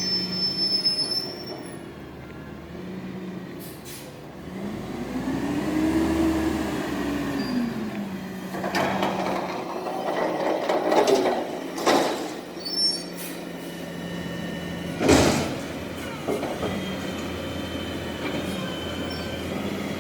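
Garbage truck emptying a dumpster: its engine revs up and back down to drive the hydraulics, with high metal squealing and clattering, then loud bangs of the dumpster being slammed, the biggest about fifteen seconds in.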